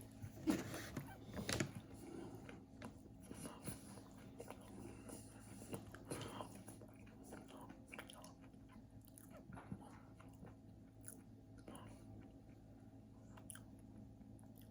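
A person biting and chewing a Rice Krispie treat square, with faint crunching and mouth clicks that are busiest in the first couple of seconds and then sparse, over a steady low hum.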